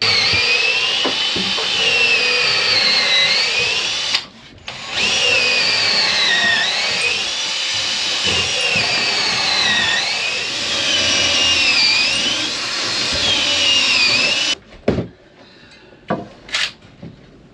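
Power drill boring through the heavy timber of a boat's knee and web frame to take threaded bar. The motor whine dips and recovers in pitch again and again as the bit bites, in two long runs with a short stop about four seconds in. After the drill stops near the end, a few short knocks follow.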